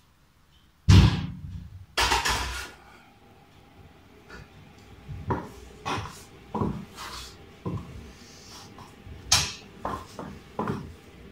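Kitchen clatter: two loud knocks about one and two seconds in, like dishes or pans set down on a counter. These are followed by a run of sharper, quieter clicks from platform high heels stepping on a tile floor.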